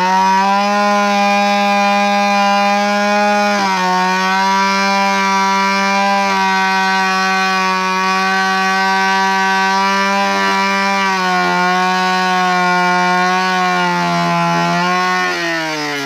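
Chainsaw engine held at high revs with a steady, even pitch that dips slightly a few times and falls away near the end.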